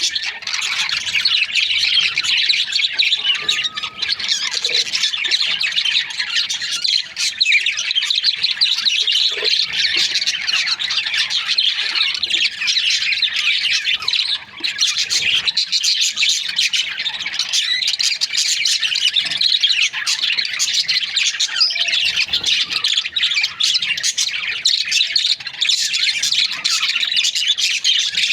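Many budgerigars chattering, chirping and squawking at once, a dense, unbroken chatter of overlapping high calls.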